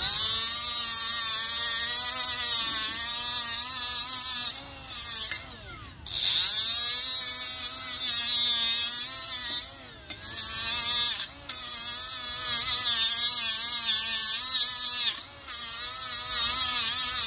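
Milwaukee cordless die grinder fitted with a sandpaper accessory, running at a high steady whine that wavers a little in pitch. The trigger is let go and pulled again several times, the whine dropping away briefly and picking back up.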